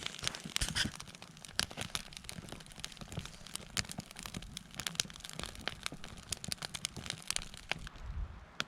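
Wood campfire burning, with dense, irregular crackles and pops.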